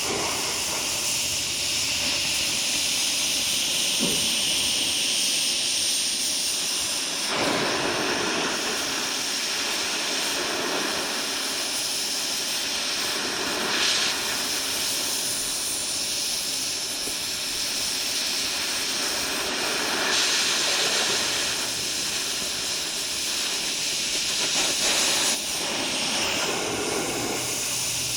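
Stick-welding arc crackling and hissing steadily with no break.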